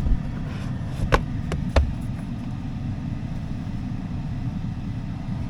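A few sharp knocks and clicks in the first two seconds, three in all, as plastic interior trim pieces are handled and pulled out, over a steady low rumble.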